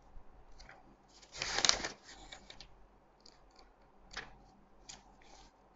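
Pages of a small paper instruction booklet being flipped and handled: soft paper rustles and flicks, the loudest about a second and a half in, then a few lighter ones.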